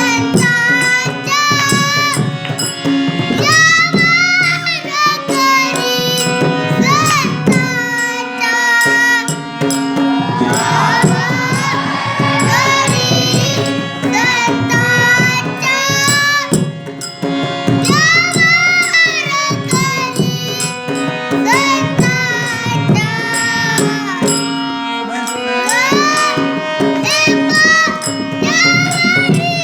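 A solo voice singing long, ornamented phrases that glide up and down in pitch, over a steady held drone and drum strokes.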